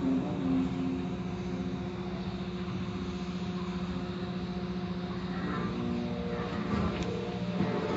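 Automatic car-wash machinery running, heard from inside the car's cabin: a steady, pulsing mechanical hum as the spinning wash brushes pass over the car.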